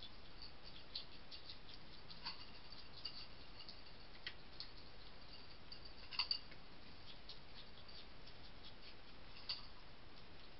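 A hedgehog and a cat crunching dry food from feeding dishes: faint, irregular crisp ticks and clicks, with a sharper double click about six seconds in.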